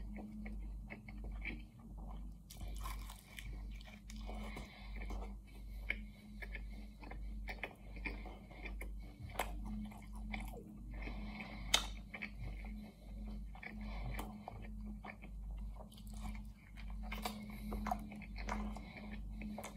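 Close-miked chewing and biting of a roast chicken pie: moist, crackly mouth sounds and flaky pastry crunching, with one sharp click about twelve seconds in.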